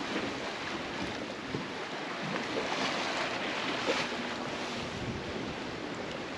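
Choppy open sea rushing and slapping past the hulls of a Leopard 45 sailing catamaran under way, with wind buffeting the microphone: a steady rushing noise.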